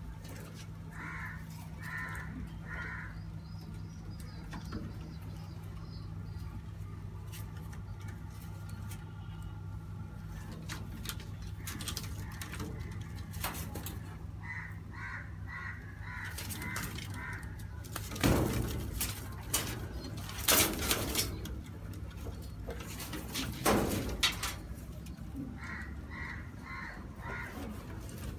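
Birds calling in a pigeon loft: short notes repeated in quick runs of three to seven, three times over. About two-thirds in there are a few loud bursts of noise, over a steady low hum that stops around the same point.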